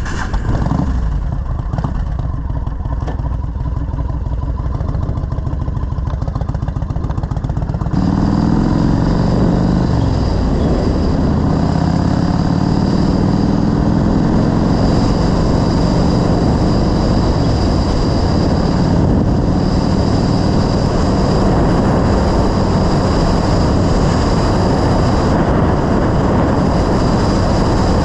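Yamaha XV1600 cruiser's V-twin engine idling with an even, loping beat. About eight seconds in it pulls away, rising in pitch through the gears, then runs steadily at road speed with wind noise.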